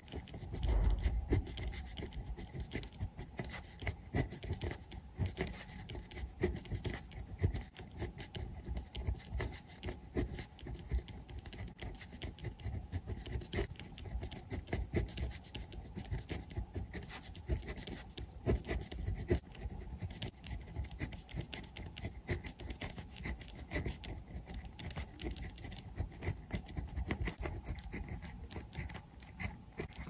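Pen nib writing Chinese characters on paper: an irregular, unbroken run of short scratching strokes as each character is formed.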